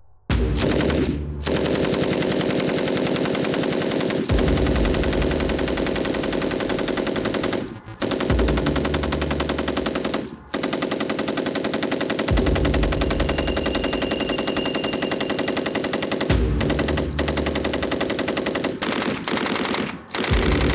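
SAR 762 MT belt-fed machine gun in 7.62×51 mm NATO firing on full automatic. It fires long, rapid bursts of several seconds each, broken by brief pauses.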